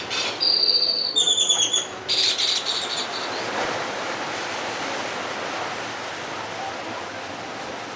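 Birds calling a quick run of loud, shrill notes in the first three seconds, then a steady rush of ocean surf.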